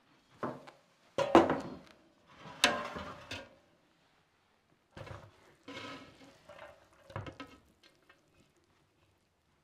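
Handling noises of a cloth full of cooked pilaf rice being lifted and shaken out of a large aluminium pot: rustling cloth and rice with several knocks against the pot, the loudest about a second in. The noises come in separate bursts, softer in the second half.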